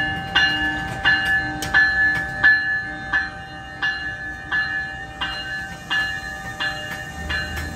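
The bell of an NJ Transit ALP-46 electric locomotive ringing steadily, about one stroke every 0.7 seconds, as the train pulls out, over the low rumble of the slow-moving train.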